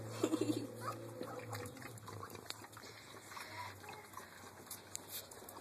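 A dog or cat making a quick run of short vocal sounds in the first second, then only faint scuffling.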